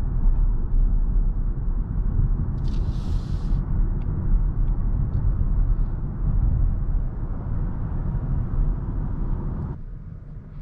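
Steady low road and tyre rumble inside the cabin of a BMW i7 electric sedan on the move. About three seconds in comes a brief hiss, and shortly before the end the rumble drops off suddenly.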